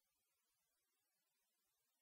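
Near silence, with no sound at all.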